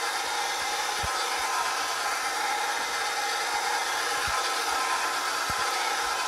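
Electric stand mixer running at a steady speed, its beater turning in a bowl of cake batter, with a few faint low knocks.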